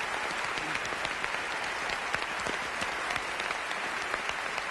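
A large theatre audience applauding steadily: a dense, even wash of many hands clapping.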